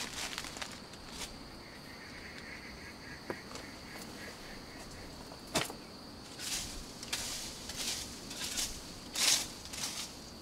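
Dry leaf litter rustling and crunching under footsteps and hands, with a couple of sharp knocks and a cluster of louder rustles in the second half as leaves are scraped aside. A steady high insect drone runs underneath, with a pulsing insect or bird trill for a few seconds in the first half.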